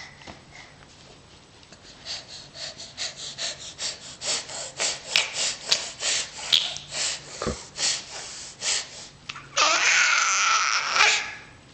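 Rapid wheezy breaths, about three or four a second, followed near the end by a louder drawn-out rasping sound.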